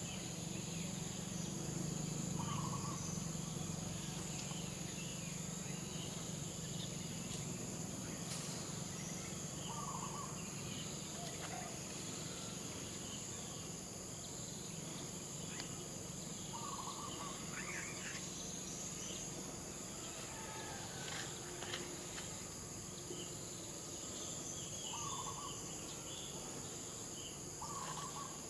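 Steady high-pitched drone of forest insects, with a low hum underneath and a short low call heard about five times, several seconds apart.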